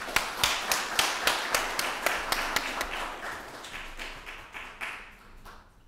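Audience applause in a conference room, with one nearby person's claps standing out in an even rhythm, dying away near the end.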